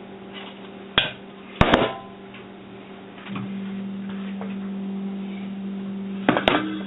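Hard knocks and clatter of parts from a dismantled rice cooker being handled and set down, a few sharp strikes about a second in and again near the end. A steady low hum comes in about three seconds in.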